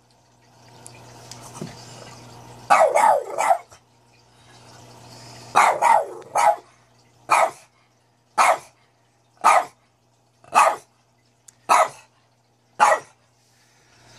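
Boston terrier barking for attention: a quick burst of barks about three seconds in, another just before six seconds, then six single barks about a second apart.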